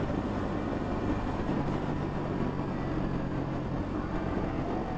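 Yamaha XSR155's single-cylinder 155 cc engine running steadily while riding, over a constant rush of wind and road noise.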